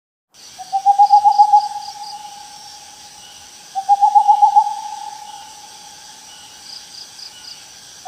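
An owl hooting twice, each call a quick run of stuttering pulses on one steady pitch that trails off, the second coming nearly four seconds in.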